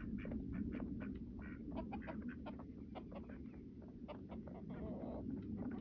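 Backyard chickens clucking: many short, scattered clucks from several birds, over a steady low rumble.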